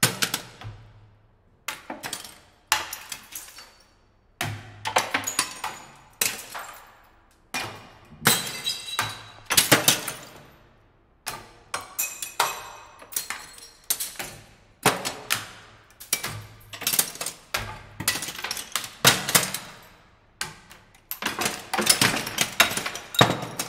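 A series of glass breaking and shattering, one crash after another, each followed by tinkling shards, with short pauses between some of them.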